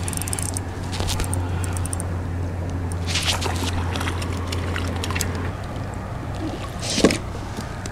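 A small channel catfish splashing and thrashing at the water's surface as it is reeled up beside a kayak, in two splashy bursts about three seconds in and again near the end. A steady low hum underlies the first part.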